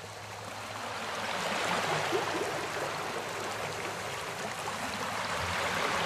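Shallow stream running over rocks, a steady rush of flowing water that swells up over the first two seconds.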